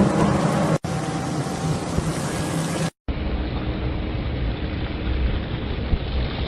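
Heavy-equipment engine running steadily. About three seconds in the sound cuts out briefly and a duller, deeper rumble takes over.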